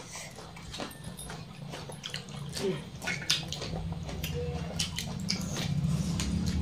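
Wet eating sounds of rice and egg curry being mixed by hand and chewed: short smacking and clicking mouth noises. A low steady hum comes in over the second half.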